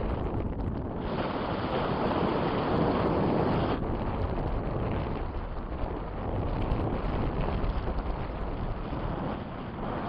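Strong wind rushing and buffeting over the microphone, swelling louder for a few seconds about a second in.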